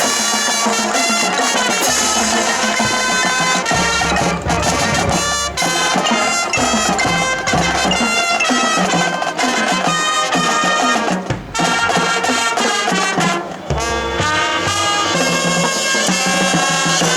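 High school marching band playing a field show: brass and woodwinds sounding sustained chords over drumline percussion, with a couple of brief breaks near the middle.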